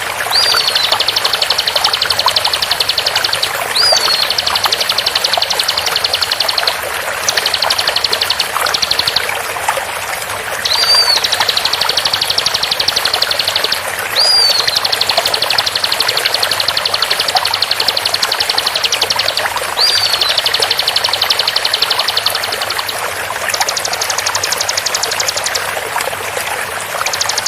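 Bar-winged prinia (ciblek) singing its rapid-fire 'shot' trills: long runs of very fast, high buzzy notes lasting a few seconds each with short breaks, with a few quick up-and-down whistled notes between, and a higher-pitched trill near the end. Steady rush of flowing water underneath.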